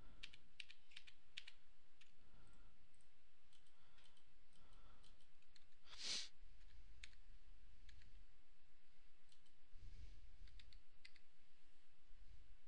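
Scattered clicks of a computer mouse and keyboard, a quick run of them in the first second or two and one louder click about six seconds in.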